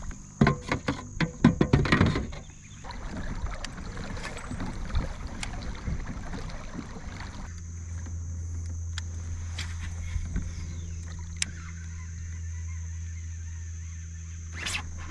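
A quick run of sharp knocks and clicks with splashing against a kayak as a bass is handled and put back in the water. Then a steady low hum with a few scattered ticks, under a constant high-pitched drone.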